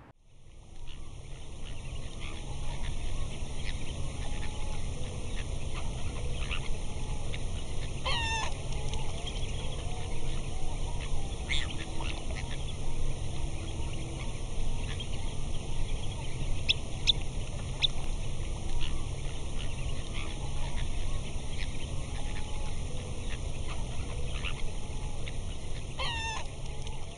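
Waterside ambience sound effect: water birds calling now and then over a steady low rumble. A string of wavering calls about eight seconds in comes back almost the same near the end.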